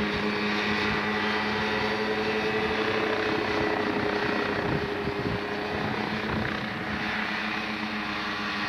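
Homebuilt experimental helicopter's engine and rotor running steadily, a constant hum with a chopping beat in its low note.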